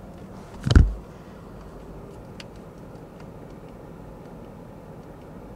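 Steady low cabin rumble of a Mercedes E500 (W211) V8 sedan driving, engine and road noise heard from inside the car, with one short thump just under a second in.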